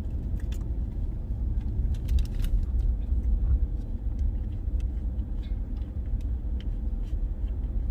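Steady low rumble of a car heard from inside the cabin, with scattered faint clicks.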